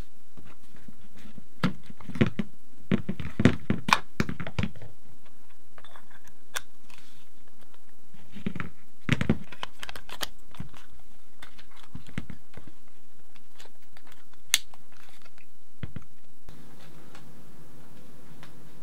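Hard plastic clicking and handling as a GoPro Karma Grip's mounting ring is fitted and clamped around the grip's handle. The clicks come in clusters, with one sharp snap about three quarters of the way through.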